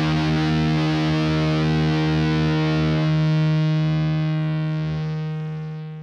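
Electric guitar through distortion, letting one struck sound sustain and ring without change, then fading away over the last second or so.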